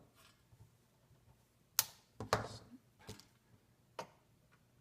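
A few sharp clicks and knocks from parts of a network switch being handled, four in all, the loudest about two seconds in.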